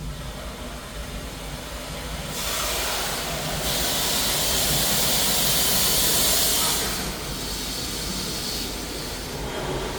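Automatic car wash running: a steady low machinery rumble, with a loud hissing spray that swells about two seconds in, is strongest in the middle, and eases off about seven seconds in.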